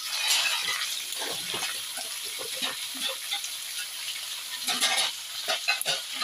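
Hot oil in a wok of frying pork, garlic and onion sizzling as cubed kalabasa (squash) is tipped in from a metal tray, the sizzle swelling about half a second in. A run of sharp clicks and knocks near the end as pieces land in the wok.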